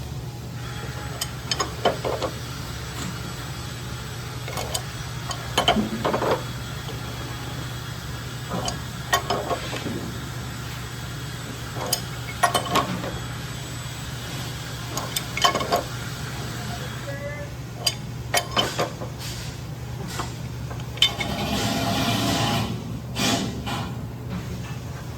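Scattered metallic clinks and knocks of hand tools and steel pump parts as a hydroseeder gear pump is unbolted and taken apart, over a steady low hum.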